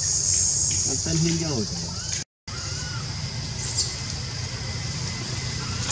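People's voices talking in the background over a steady high-pitched hiss, with a few short chirping calls. The sound cuts out completely for a moment about two seconds in.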